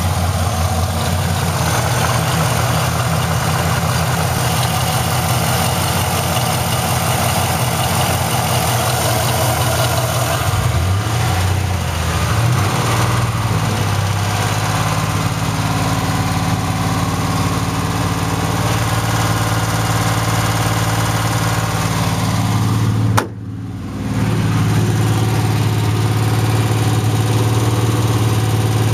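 GM LS1 5.7-litre V8 idling with a rapid ticking that the owner cannot place between an exhaust leak and a lifter tick. The engine note shifts and settles a little under halfway through, and the sound drops away briefly for about a second near the end.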